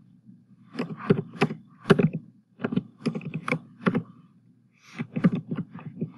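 Computer keyboard being typed on, in two runs of key clicks: one from about a second in to about four seconds, and a shorter one near the end. A steady low hum sits underneath.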